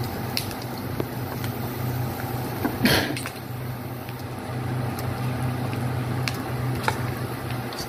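Chopped onion, garlic and pork pieces frying in oil in a granite-coated wok, stirred with a plastic slotted spatula that taps and scrapes the pan, with a louder scrape about three seconds in. A steady low hum runs underneath.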